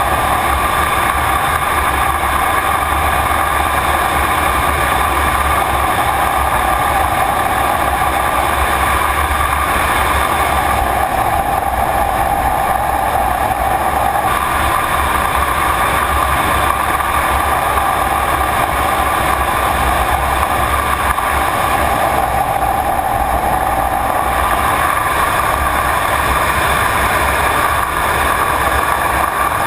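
Jet aircraft engines running steadily: a constant loud noise with a whine near the middle of the range whose pitch shifts slightly several times.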